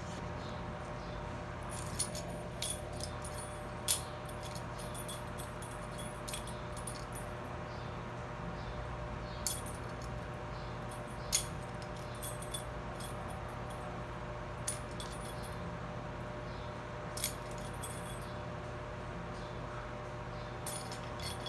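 Arno Ultra Silence Force electric fan running steadily, its motor giving a steady hum under the airflow noise. Short sharp clinks come every few seconds at uneven intervals.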